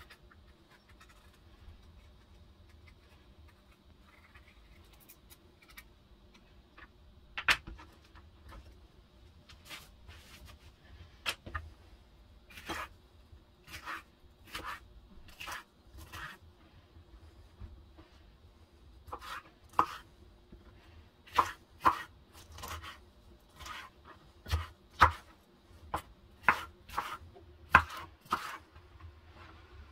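Chef's knife slicing a yellow bell pepper on a wooden cutting board: sharp knocks of the blade on the board. The knocks start after a quiet stretch, sparse at first, then come about one or two a second in the second half.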